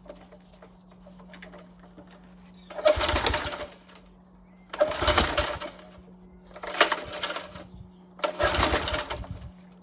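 Mountfield Empress 16 lawn mower being pull-started: four hard tugs on the recoil starter about two seconds apart, each about a second of the engine turning over, without it catching.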